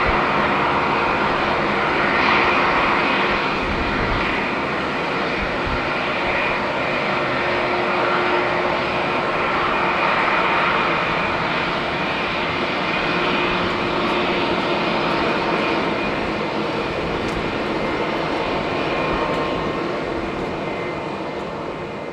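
Rolls-Royce Trent XWB turbofans of an Airbus A350-900 running at takeoff power, a steady jet roar that fades near the end.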